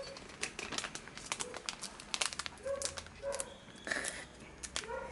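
Metallised anti-static shielding bag crinkling as it is handled and pulled open by hand: a string of irregular sharp crackles.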